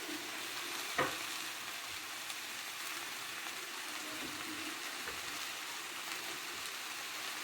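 Calamari pieces sizzling in hot oil in a pan, a steady frying hiss, with a single utensil knock about a second in.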